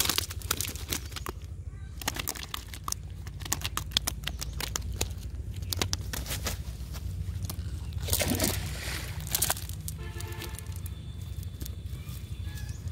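Live fish flapping and slapping on a cast net lying on grass as they are picked out by hand, the wet net mesh rustling and crackling: a run of sharp slaps and clicks, with a louder flurry about eight seconds in.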